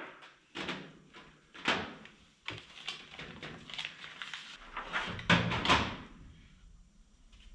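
Old wooden chair squeaking and creaking under a seated person shifting his weight, mixed with short rustles and light knocks from a vinyl decal and its backing paper being handled. The sounds come as a string of separate bursts, the loudest a little past the middle.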